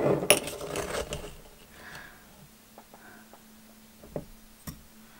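A small metal spoon scooping washing-soda powder from its container, with about a second of scraping and rustling, then a few light clicks and taps.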